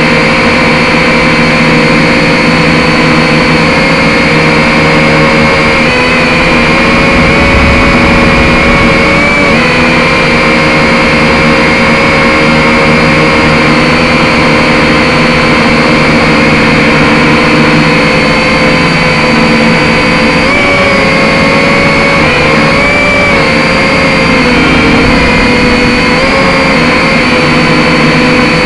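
Drone motors and propellers whining steadily, with the pitch wobbling and shifting a few times as the motor speed changes, most of all in the last third.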